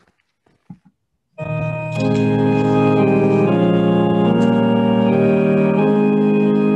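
A few faint clicks, then about a second and a half in an organ starts playing sustained chords with a moving melody on top: the introduction to a hymn, before the singers come in.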